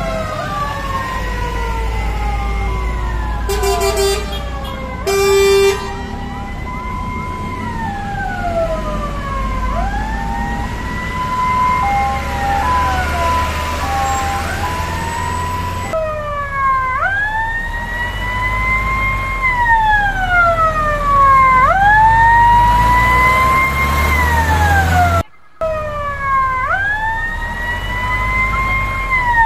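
Fire truck sirens wailing, each rising and falling about every three seconds, several overlapping at first and then a single louder siren, over the rumble of the trucks' engines. Two short blasts of a horn come about four and five and a half seconds in.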